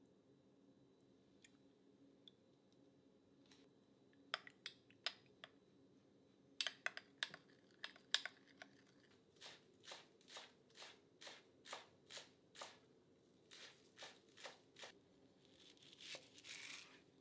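A small metal spoon stirring a creamy dressing in a glass cup, clicking against the glass at first and then going round in steady strokes about two a second. Near the end, a kitchen knife cuts through green onions on a cutting board.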